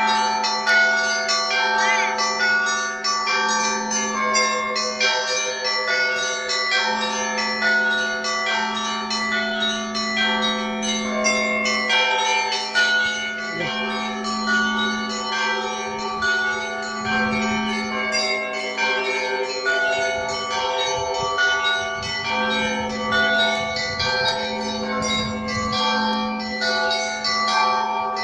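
Russian Orthodox church bells being rung in a continuous peal: small bells struck in quick, overlapping patterns over a deep bell that sounds every couple of seconds.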